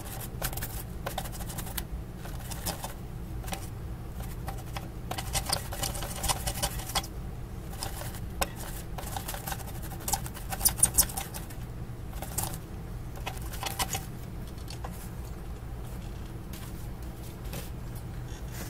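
Brush and paper wipe scrubbing a circuit board in irregular scratchy strokes, cleaning rosin flux residue off with isopropyl alcohol. The scrubbing stops about 14 seconds in, leaving a low steady hum.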